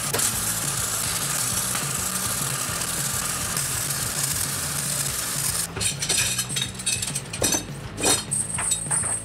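Electric arc welding on steel chain: a steady crackling sizzle that stops about five and a half seconds in. Then steel chain links clink and rattle as the welded chain is handled.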